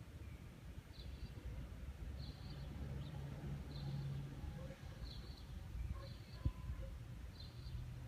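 A bird calling, six short high chirps spaced about a second or more apart, over a low rumble. A single sharp knock about six and a half seconds in.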